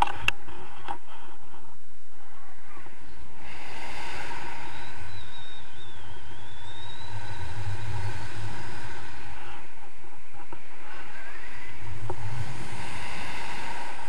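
Wind rushing over the microphone of a camera carried on a tandem paraglider in flight: a steady rush with a low rumble that swells twice, and a faint wavering whistle in the middle.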